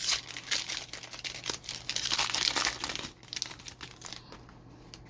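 A trading-card pack wrapper crinkling and tearing as the pack is ripped open. It dies down after about three seconds.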